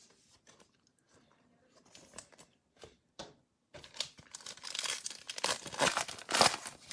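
Plastic foil trading-card pack wrapper being handled, torn open and crinkled. Faint rustles and clicks come first, then loud, dense crackling from about four seconds in.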